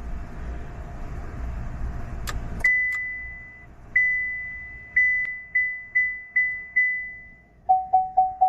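2024 Chevrolet Trailblazer's warning chime dinging in the cabin during key programming. A steady low hum and two clicks come first, then a higher ding repeats at uneven intervals and fades. Near the end a lower ding starts, repeating about three times a second.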